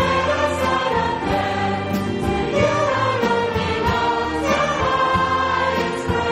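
A choir singing a hymn.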